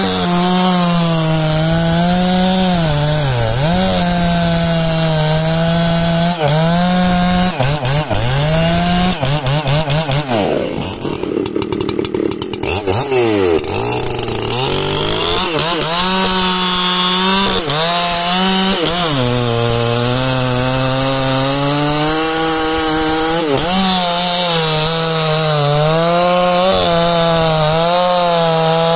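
Makita EA7900 79cc two-stroke chainsaw running at full throttle, cutting through a large log, its pitch dipping each time the chain bogs in the wood. About halfway through, the engine note sags and wavers and turns quieter for a few seconds before it settles back to a steady high pitch in the cut.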